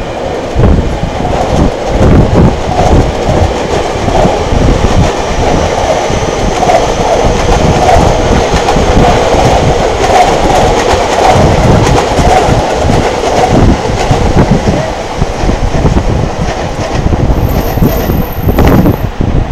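Electric passenger train running past on the tracks at Tokyo Station, building up over the first couple of seconds, strongest through the middle and easing off in the last few seconds, with wind rumbling on the microphone.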